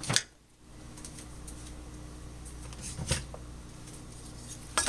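Quiet kitchen with a faint steady hum and a couple of light knocks, then, near the end, a wooden spoon starts scraping and clattering against a saucepan as flour-covered corn is stirred.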